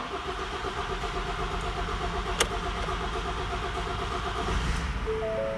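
Ford Tourneo Custom's EcoBlue diesel cranking over on the starter with even pulses, its freshly changed fuel filter still holding air; near the end it briefly fires and runs. A dashboard warning chime starts just before the end.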